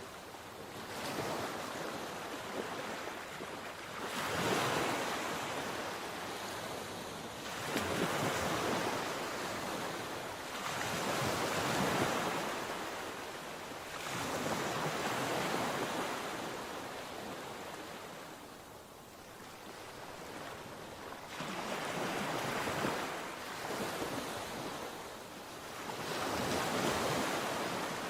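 Sea waves breaking on the shore, surging and falling back again about every three to four seconds, with wind buffeting the microphone.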